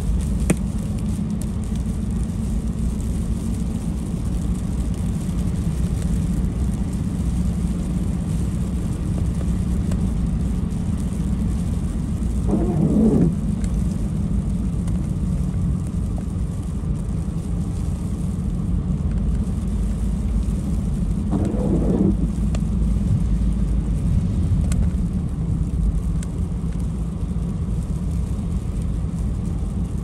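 Steady low road and engine rumble inside a moving car, with the windshield wipers on an intermittent setting: twice, about nine seconds apart, a wiper blade sweeps across the wet glass with a squeaky rubbing sound lasting about a second.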